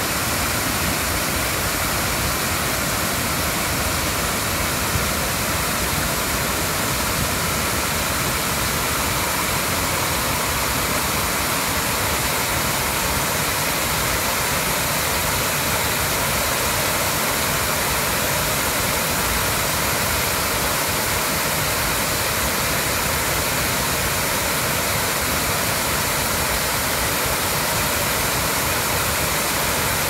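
Steady rushing of a wide, low curtain waterfall: many thin streams of spring water spilling down a rock wall into a pool, an even splashing noise that does not change.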